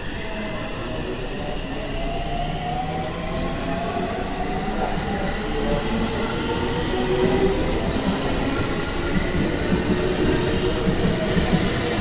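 JR Central 313 series electric train pulling out and accelerating: a whine that climbs steadily in pitch as it gathers speed, growing louder, with the wheels' clickety-clack over the rail joints coming in during the second half.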